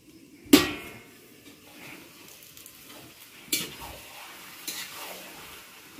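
Frying in a wok over a wood fire: a low steady sizzle, with one loud sharp hit about half a second in and two smaller knocks later as the pan is stirred.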